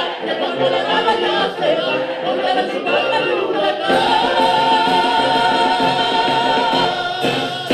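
Music with singing. About four seconds in, the voice settles on one long held note with vibrato that lasts almost to the end.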